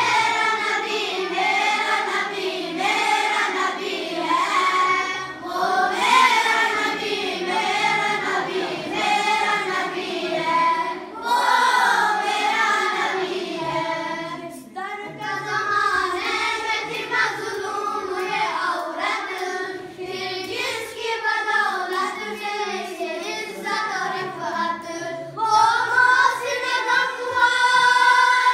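A boy singing a naat, a devotional song in praise of the Prophet, with no accompaniment; his voice slides and wavers on long held notes, with short breaks between lines. The singing grows louder near the end.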